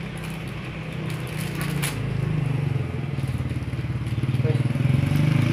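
A motorcycle engine running close by, a steady throbbing hum that grows louder toward the end and then stops suddenly. Under it, the plastic wrapper of a bread bun crinkles as it is torn open, with one clearer rustle about two seconds in.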